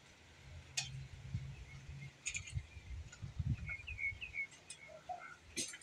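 Small birds chirping in short, high notes, over a low rumble and a few sharp clicks.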